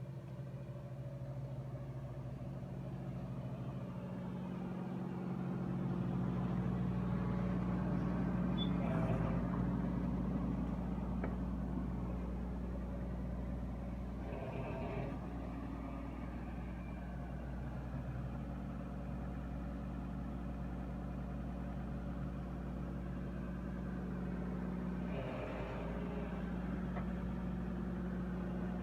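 Fiat-Allis FE20LC excavator's diesel engine running steadily, swelling a little about a quarter of the way in, with three short rougher surges of noise along the way; the engine runs smoothly.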